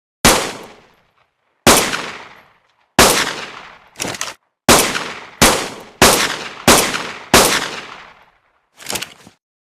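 Fabricated pistol gunshot sound effect: a string of about ten single shots, each a sharp crack with a decaying tail. The shots are spaced roughly 0.6 to 1.4 seconds apart and come faster in the middle. Two of the shots, about four seconds in and near the end, are shorter and fainter.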